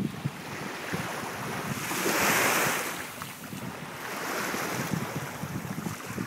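Small waves washing up onto a sandy shore, one swelling in loudest about two seconds in and a softer one around four seconds later. Wind buffets the microphone throughout.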